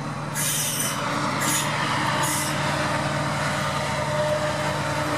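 Class 68 diesel-electric locomotive's Caterpillar V16 engine running with a steady drone as it draws slowly past along the platform. Three short hisses come in the first two and a half seconds.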